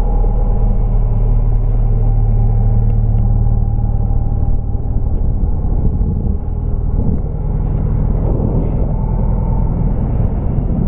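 Motorcycle on the move: engine running under a steady low rumble. The deepest tone drops away about halfway through.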